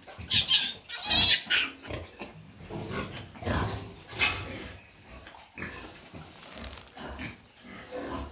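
Pigs at farrowing, newborn piglets and sow, calling. Several short, loud, shrill squeals come in the first second and a half, followed by quieter low calls.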